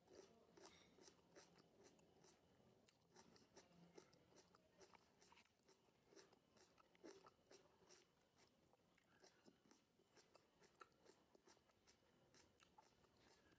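Faint close-up chewing of raw tomato, with many small, irregular wet crunches and mouth clicks.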